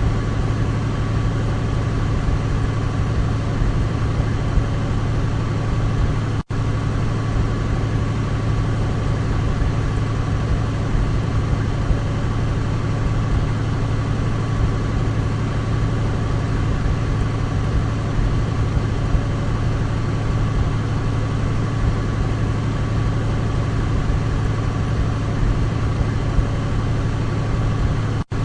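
Douglas DC-3's twin radial piston engines droning steadily at a constant speed, with a strong low hum. The sound cuts out for an instant about six seconds in and again near the end.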